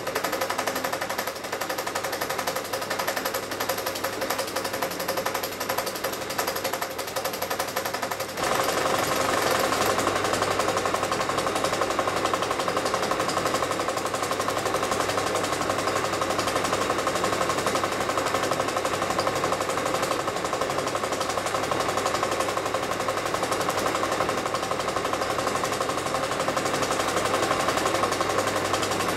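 Film projector running: a steady, rapid mechanical clatter that grows louder about eight seconds in.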